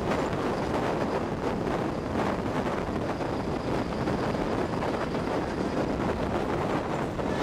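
Wind buffeting the microphone at a moving train's window, over the steady running noise of the passenger coach on the track.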